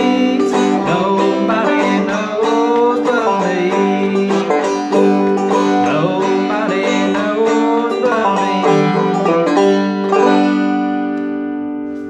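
Five-string banjo played clawhammer style in open G tuning: a quick run of plucked and brushed notes, ending about ten seconds in on a final chord left ringing and slowly fading.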